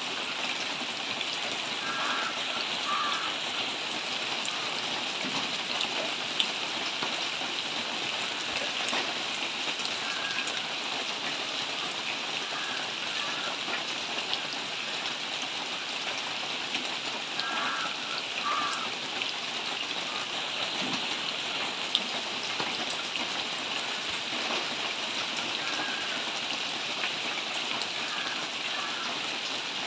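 Steady rain falling on trees and foliage, an even hiss, with a couple of sharper single taps.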